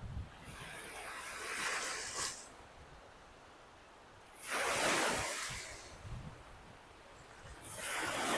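Lake Michigan waves breaking and washing up the beach: three surges of wash, about three seconds apart, each swelling and then fading.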